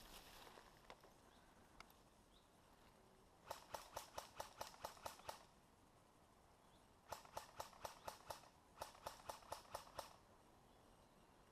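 Airsoft guns firing in three rapid bursts of about six shots a second: the first about three and a half seconds in, then two more close together past the middle.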